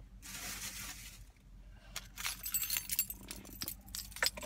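Car keys jangling and clinking in the hand, a scattered run of small metallic clicks, after a short rustle in the first second.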